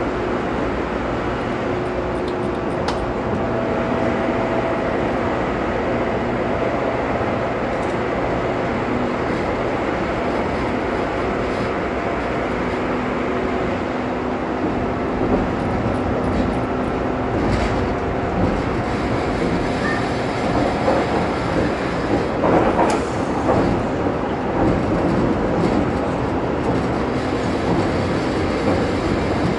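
Train running along the line, heard from on board: a steady running noise with a few held tones, and wheels clattering over the rails. The knocks and clatter come more often and louder about halfway through.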